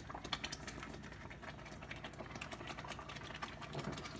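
Thick mung bean stew simmering in a stainless-steel pot: faint, rapid ticking and popping of bubbles at the surface.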